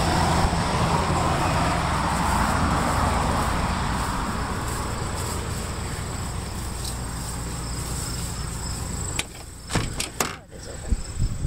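A motor vehicle's engine and tyres, loudest at the start and fading away over several seconds, over a steady high insect buzz. About nine seconds in come a few sharp knocks and clunks as the old pickup's cab door is opened.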